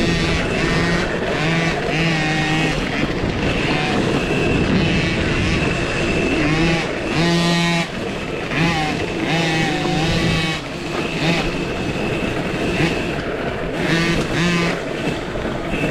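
A 2023 KTM SX-E5 electric minibike being raced off-road, heard over a steady rush of wind and track noise. Its motor whines in pitched tones that cut in and out and rise and fall as the throttle is worked.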